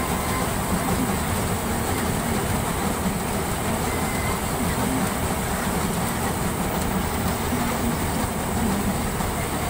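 Standard TSC-513 combine harvester running steadily, its engine and unloading auger going without a break as paddy grain pours out of the spout.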